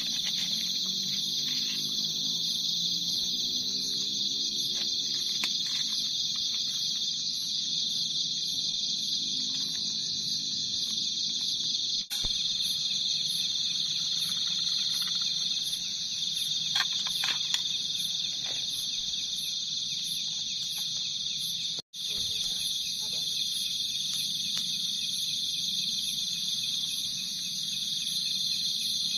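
Night-time chorus of crickets and other insects: a steady high buzz with a faster pulsing trill above it, broken twice for an instant, with a few faint clicks around the middle.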